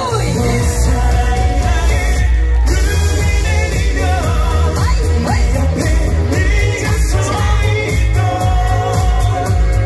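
A young man singing a Korean pop song into a handheld microphone over a backing track with a heavy, steady bass beat.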